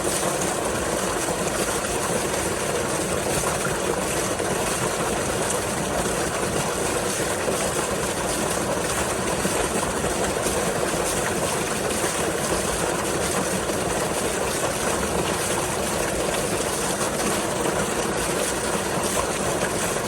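Pumped water pouring steadily from an outfall into the marina basin: a constant, unbroken rushing.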